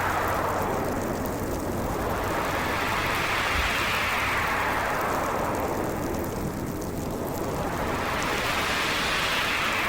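Storm wind blowing in gusts: a steady rushing hiss that swells and rises in pitch, then falls away, about once every five seconds.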